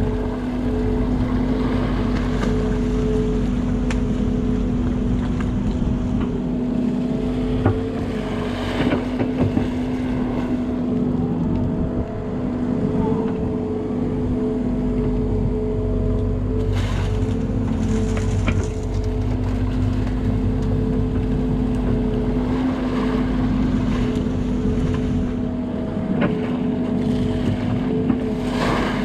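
CAT 308 excavator's diesel engine running at a steady working speed, a constant drone with a steady hum over it, broken by a few short knocks.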